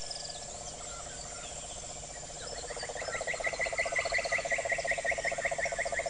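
Chorus of calling forest insects: a steady pulsing trill, joined by a second, louder trill about two and a half seconds in. Over it runs a fast series of short, repeated chirps, about four a second.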